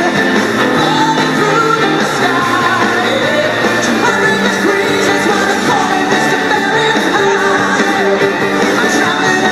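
A rock-and-roll style song with a lead vocal.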